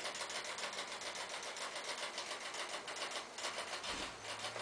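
Faint, rapid, even mechanical ticking.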